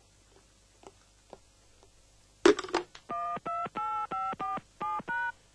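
Push-button telephone being dialed: a sharp click, then a quick run of about eight keypad beeps, each a short two-note tone.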